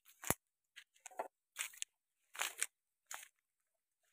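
Footsteps crunching through dry grass and undergrowth: about six short crackling steps, irregularly spaced, the first with a soft thud.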